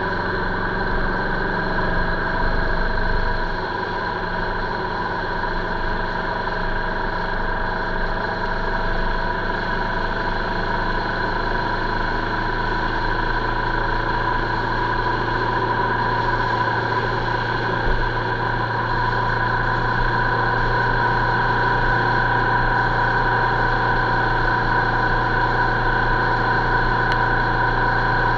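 Vehicle engine running steadily while cruising, a constant hum with a low drone, heard through an onboard camera. There is one brief low bump about two-thirds in, and the sound grows a little louder near the end.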